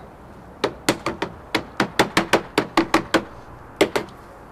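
Sheet lead being tapped down into place: about fifteen sharp taps in quick succession, with a short pause before the last two.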